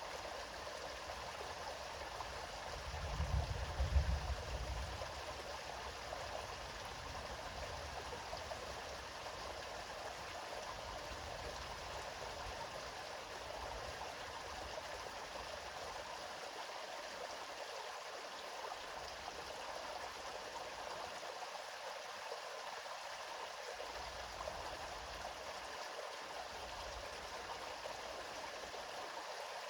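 River water flowing steadily, an even rushing hiss. About three seconds in, a brief low rumble rises under it for a second or two.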